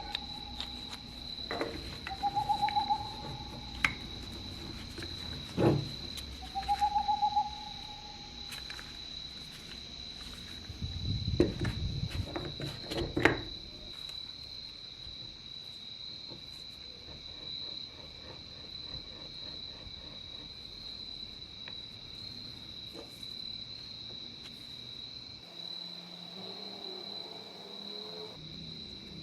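A steady high insect-like chirring throughout, with three short trilled hoot-like calls in the first eight seconds and scattered knocks and clicks over the first half.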